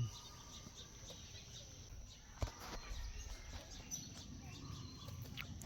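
Faint outdoor ambience with scattered bird chirps over a low rumble, and a single sharp knock about two and a half seconds in.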